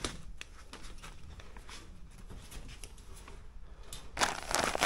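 Foil-faced insulation crinkling and rustling as a hand brushes and presses against it: faint scattered crackles at first, then from about four seconds in a louder, continuous crackling rustle.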